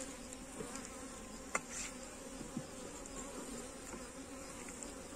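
Honeybees buzzing from an open hive as a steady hum, with two light knocks as a wooden frame is set down into the hive box.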